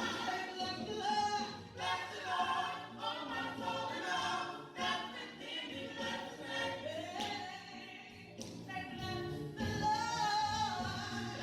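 Gospel church choir singing a praise song, several voices together.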